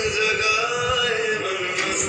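Dance song playing: a singer holds one long note that slowly falls in pitch, over low drum beats.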